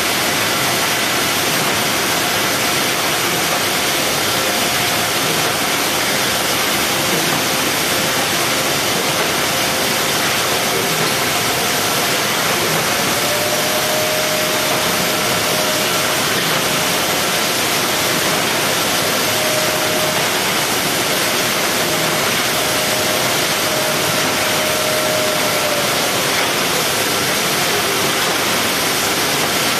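Steady, loud machinery noise from a box-palletizing robot cell, an even hiss with faint whining tones over it. One whine holds through the middle of the stretch, then stops.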